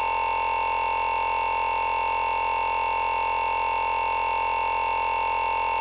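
Steady electronic buzzing tone, one unchanging pitch with many overtones: a recording glitch caused when the phone's Wireless Emergency Alert interrupted the recording.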